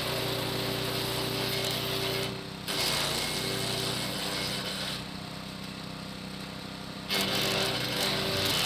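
Hecht 6208 electric garden shredder running with a steady motor hum, its blades chewing branches in spells. It is quieter between about five and seven seconds in, then louder again.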